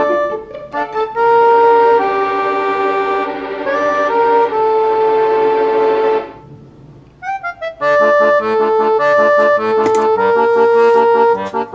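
Background instrumental music with long held notes. It fades out about six seconds in, and a new, more rhythmic tune starts about two seconds later.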